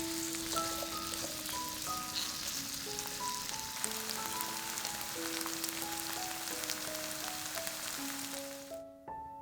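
Food sizzling in hot oil in a pan, with many small pops, under piano background music; the sizzle cuts off abruptly near the end, leaving only the piano.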